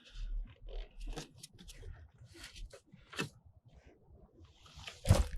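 Light handling noises: scattered small clicks, scrapes and rustles, with a louder knock near the end.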